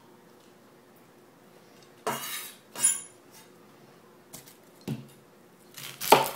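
Chef's knife and produce knocking on a plastic cutting board during vegetable prep. A short scrape about two seconds in is followed by a brief metallic clink, then a light click. Near the end comes the loudest knock, as a whole onion is set down on the board.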